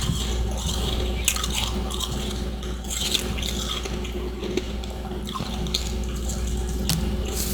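Close-miked mouth chewing of humidifier freezer frost: irregular soft crunching with a few sharp cracks, over a steady low hum.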